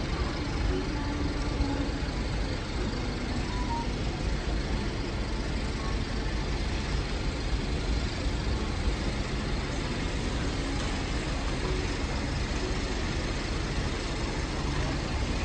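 Steady city street traffic noise with a low rumble, as a KAMAZ-6282 electric bus pulls in to the stop.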